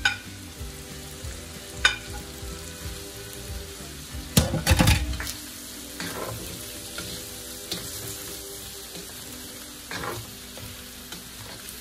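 Chicken, carrots and chayote slices sizzling in a stainless steel wok while a spatula stirs and scrapes them, with sharp knocks of the spatula against the metal, the loudest cluster about four and a half seconds in.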